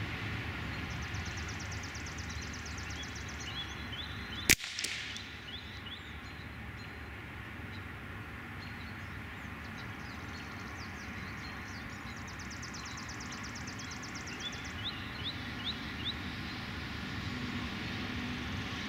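A single shot from a Beretta ARX 160 .22 LR rifle about four and a half seconds in, a sharp crack with a short ringing tail, heard from downrange at the target 50 yards away. Small birds chirp and trill on and off throughout.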